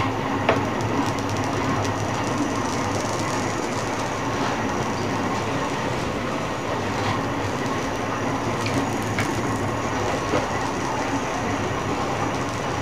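Old Samsung 21-inch CRT television just switched on after a board replacement, its speaker giving out a steady rushing static hiss over a low hum, with a few faint clicks as the picture tube warms up to a blank blue screen.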